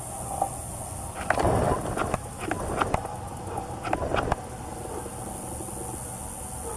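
Irregular rustling and crackling for about three seconds, starting just over a second in, over a steady low background hum.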